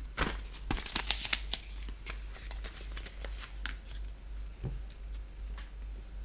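Sheets of paper-backed vinyl sticker material handled and shuffled on a desk: a quick run of crisp clicks and rustles, densest in the first two seconds and then more scattered. A steady low hum lies beneath.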